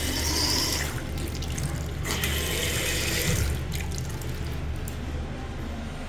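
Water running from a bathroom sink faucet and splashing into the basin, louder for the first few seconds and softer after, over a steady low hum.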